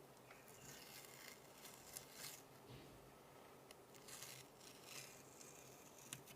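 Faint rustling and scraping of packaging being handled, with sharp clicks about two seconds in and near the end.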